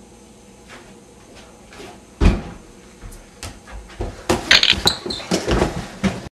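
A person jumping down from a height and landing with one heavy thud about two seconds in, then a quick run of footsteps and knocks over the last two seconds that cuts off suddenly.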